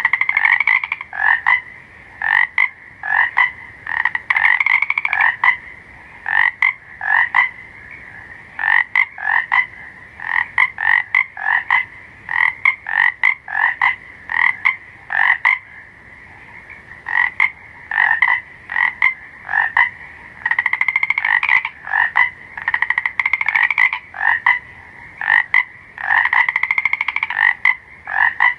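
Frogs calling: short croaks repeated in quick runs, with now and then a longer trilled call lasting about a second.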